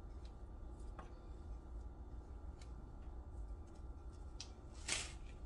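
Quiet kitchen handling as honey is put onto seasoned turkey pieces: a few faint, light clicks spread out, then one short hiss about five seconds in.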